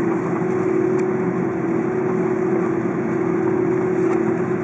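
Airbus A330 cabin noise while taxiing: the jet engines running at low taxi thrust, heard from inside the cabin as a steady hum with one constant tone.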